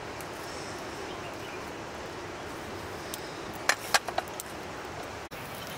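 Steady outdoor background hiss, with a handful of short sharp clicks and taps a little past the middle, as from handling a sickle and cooking pan.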